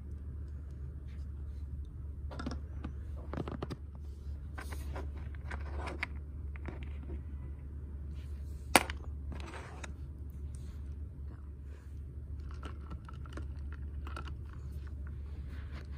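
Fingers handling a small plastic toy doll: soft scrapes, rustles and light taps, with one sharp click a little past halfway, over a steady low hum.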